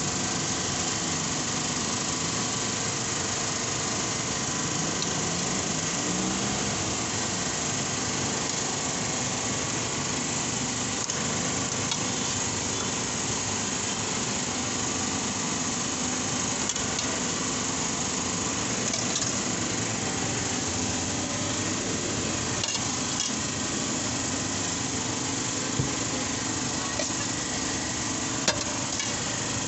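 Steady machine drone, like a motor or fan running, with a few light clicks near the end.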